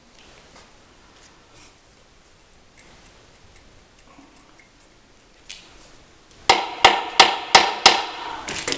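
Hammer striking metal on a tiller transmission: five quick, ringing blows about three a second, then a couple more near the end, after a stretch of faint clicks from handling the parts.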